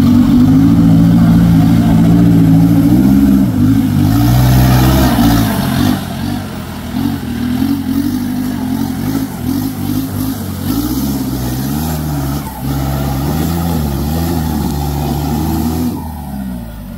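Off-road Jeep's engine revving, its pitch climbing and falling again and again, then dropping away near the end.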